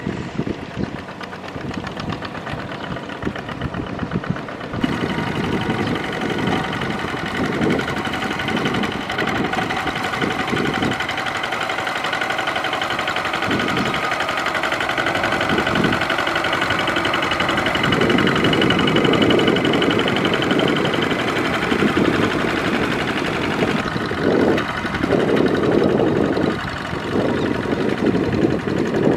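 Single-cylinder diesel engine of a two-wheel walking tractor running steadily under load as its steel cage wheels churn through a flooded rice paddy. The engine's sound steps up in loudness about five seconds in.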